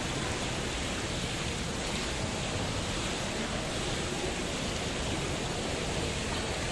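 Hot-tub jets churning the water with a steady rushing noise.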